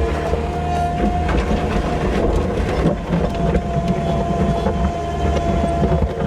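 Engine of a farm loading machine running steadily under load, with knocks and clanks from the machine as it pushes and mixes bedding and slurry on the yard.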